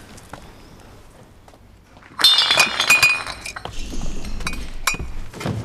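Glass shattering about two seconds in: a sudden loud crash with high ringing, then shards falling and clinking as it dies away over the next few seconds.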